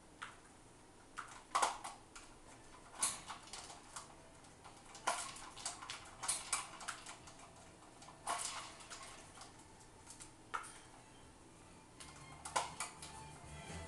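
Parrot working at a hard polycarbonate plastic foraging capsule: irregular sharp clicks and clattering taps, in clusters every second or two.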